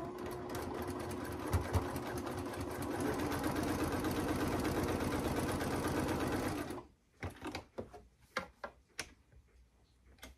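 Electric sewing machine stitching a quarter-inch seam through layered quilting cotton in one steady run, stopping abruptly about seven seconds in. A few light clicks and taps follow.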